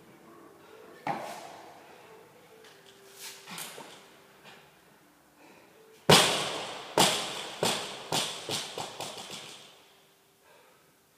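Barbell loaded with bumper plates dropped onto rubber gym flooring: one heavy thud, then a run of bounces coming faster and fainter until it settles. A single lighter knock comes about a second in.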